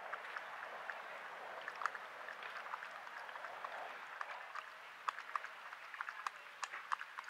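Coyote lapping water from a bowl: quick, irregular wet clicks and small splashes over a steady hiss.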